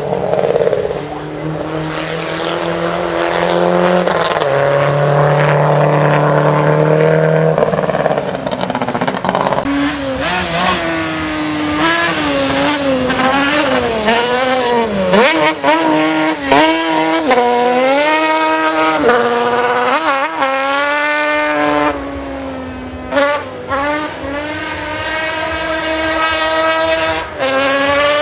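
A racing vehicle's engine working hard up a hill climb, its pitch repeatedly rising and dropping with throttle and gear changes. For the first several seconds the engine note is steadier and lower.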